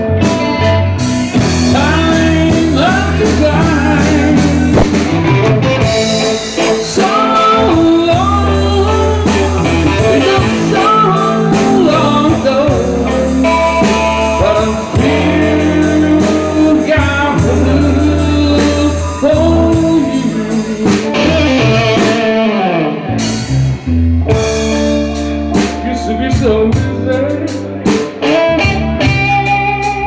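Live blues band playing: an electric guitar with bending notes over a drum kit and a steady low bass line.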